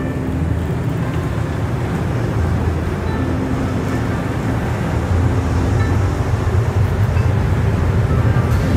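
Cabin noise of a high-speed train running at speed: a steady low rumble and hum, growing a little louder about halfway through.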